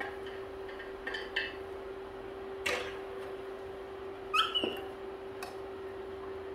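A pet monkey gives one short, high squeak about four and a half seconds in, over a steady hum, with a few light clicks and knocks.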